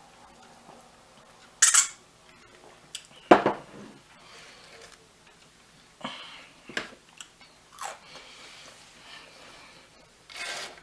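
Utensil and dish clatter while eating: short, irregular clinks and scrapes of a utensil against plates or a pan, the loudest about two and three and a half seconds in.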